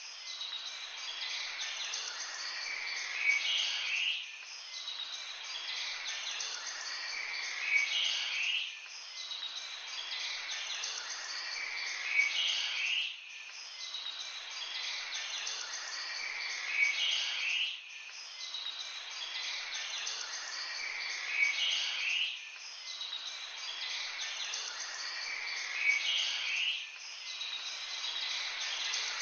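Songbirds chirping and twittering over a steady background hiss. The same short stretch repeats about every four and a half seconds, each time with one louder chirp.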